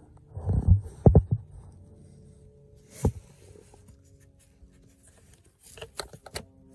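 A few dull thumps and sharp clicks of hands handling plastic dashboard trim and a tweeter's wiring plug. The thumps come in the first second or so, one click about halfway, and a quick cluster of clicks near the end.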